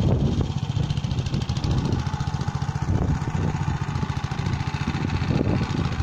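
Walk-behind tractor's engine running steadily as it pulls a trailer, with an even, rapid firing beat.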